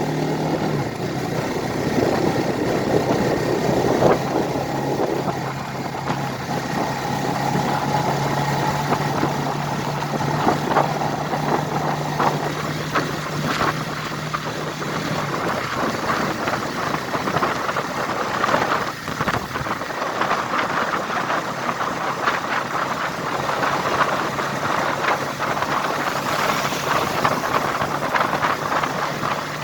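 A vehicle under way: a steady engine hum with road and wind noise. The hum fades out about halfway through, leaving a rougher rushing noise.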